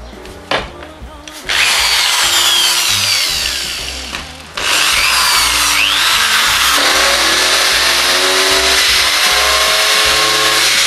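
Hand-held electric drill grinding into a broken screw with a diamond-coated engraving bit. It starts about a second and a half in, drops out briefly near the middle, then runs on steadily.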